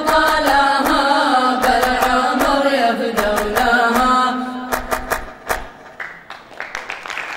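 A group of male voices chanting a sung Arabic poem over a steady low tone, kept in time by sharp rhythmic handclaps. The chant stops about four and a half seconds in, a few last claps follow, and applause starts near the end.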